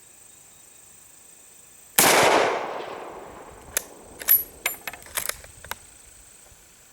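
A single shot from an M48A Mauser bolt-action rifle in 8mm Mauser, about two seconds in, with a tail that dies away over about a second. It is followed by a quick run of sharp metallic clicks and clacks as the bolt is worked to eject the spent case and chamber the next round.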